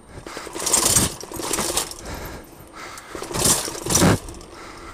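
Bumping and rattling of a wheeled ride going down stone steps and onto cobblestones, in uneven surges with the loudest jolts about a second in and again near the end.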